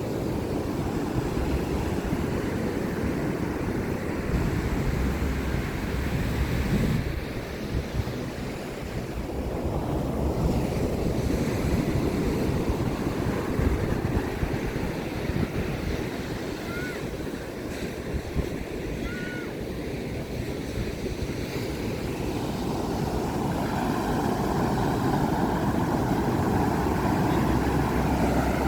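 Ocean surf breaking and washing up the beach, with wind buffeting the microphone in low rumbles.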